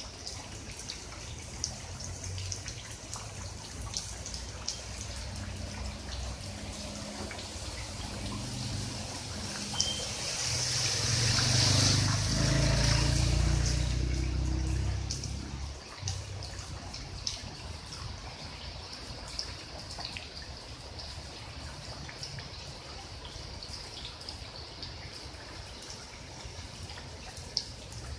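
Rain falling on floodwater: a steady hiss of drops with scattered individual drips. About ten seconds in, a louder rushing swell with a low rumble builds and fades over some six seconds.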